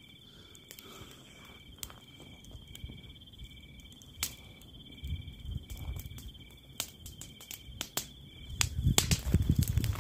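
Night insects calling, one a steady high trill and another a short chirp repeated about twice a second, over the sparse sharp crackles of burning dry grass stalks. Near the end louder rustling and handling noise comes in close to the microphone.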